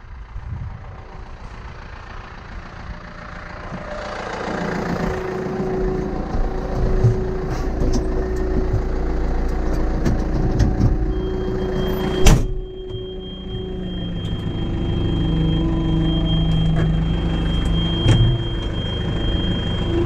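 Tractor engine running and rising in speed about four seconds in to drive the hydraulics as a tipping trailer is raised to unload backwards, with one loud knock about twelve seconds in and a thin high whine in the second half.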